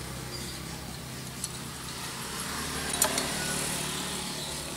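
Light metal clinks as a motorcycle's finned aluminium cylinder block is slid off its studs and lifted away from the piston, two short knocks about a second and a half apart, over a steady low hum.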